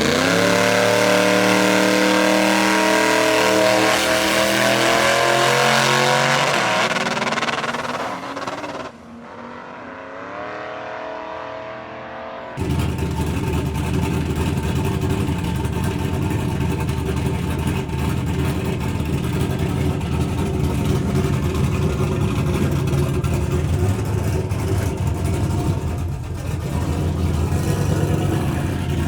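Drag car engine starting suddenly and accelerating hard, its pitch climbing steadily for about eight seconds before fading away. After an abrupt change, a loud, rough engine runs steadily with little change in pitch for the rest of the time.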